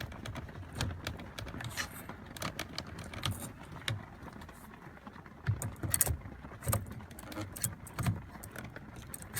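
Screwdriver prying at the ignition lock housing in a 1974 Volkswagen Beetle's steering column: irregular metal clicks, taps and scrapes, with the sharpest knocks a little past the middle and again near the end, as the housing is worked loose.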